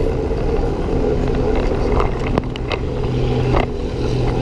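Wind rushing over the microphone of a bicycle-mounted camera while riding, a steady low rumble with a faint drone under it. A few sharp clicks, likely the bike rattling over the lane surface, come in the middle.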